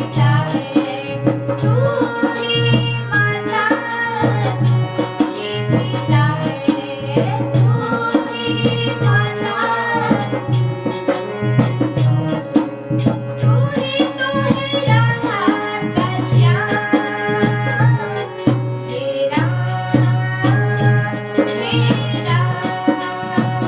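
Devotional bhajan music: tabla keeps a steady rhythm under a melody that glides and bends.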